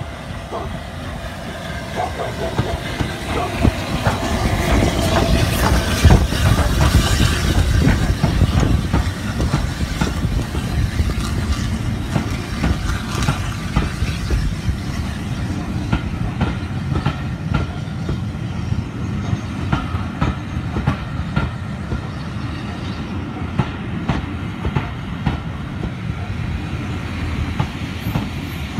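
S15 class 4-6-0 steam locomotive No. 847 running past close by, loudest about six to eight seconds in, followed by its coaches rolling past with a steady clickety-clack of wheels over the rail joints.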